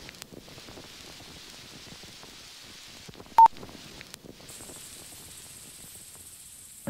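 Faint hiss with a few soft clicks and one short, loud electronic beep, like a phone keypad tone, about halfway through. A thin high whine with hiss comes in near the end.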